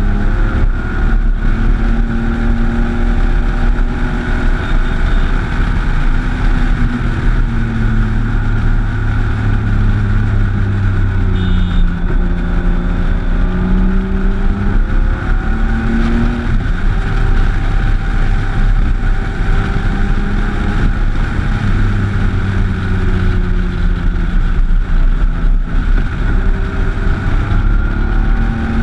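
Motorcycle engine running under way, its pitch rising and falling repeatedly as the throttle opens and closes through the bends, over a steady rush of wind noise on the microphone.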